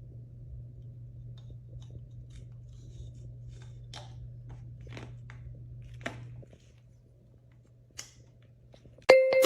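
A few faint, sharp clicks and knocks of wooden toy train pieces over a low steady hum that stops about two-thirds of the way through. Loud children's music starts just before the end.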